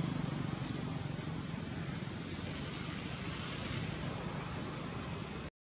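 Steady outdoor background noise: a low hum under an even hiss, with no distinct events. It cuts out abruptly near the end.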